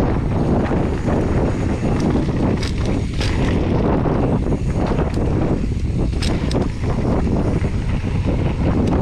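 Wind buffeting an action camera's microphone as a mountain bike rolls fast down a dirt trail, with the tyres' rumble on the dirt and sharp clicks and rattles from the bike over the bumps.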